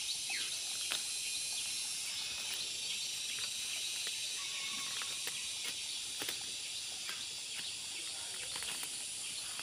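A hand tool scraping and chopping into garden soil, giving scattered sharp clicks and scrapes over a steady rural background hiss.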